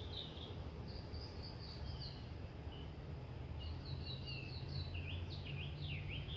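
Small birds chirping and trilling, short repeated calls that grow busier near the end, over a steady low background rumble.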